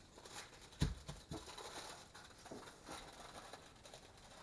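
Faint handling of an aluminum foil airplane as its wings are pressed flat: soft foil rustles and a few light knocks, the loudest a dull thump a little under a second in.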